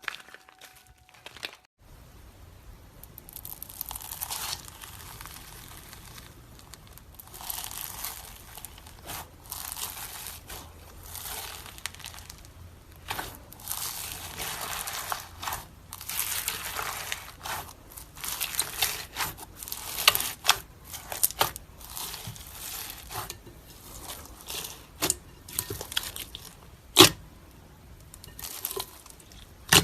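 Slime being squeezed and stretched by hand, giving off crinkly, crackling and crunching sounds in irregular swells, with a few sharp pops near the end.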